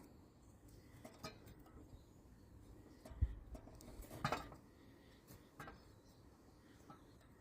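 Butter knife scraping and tapping at old gasket material on the fuel pump mounting face of a Kohler Magnum 18 engine: a few short metal-on-metal scrapes and clicks, with a dull knock about three seconds in. The old gasket is not scraping off well.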